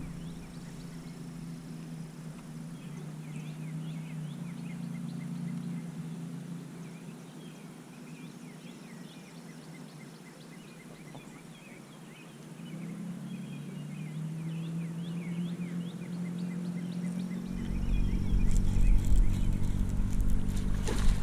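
Many short bird calls, chirps scattered throughout, over a low steady hum that fades after the start and grows louder again near the end.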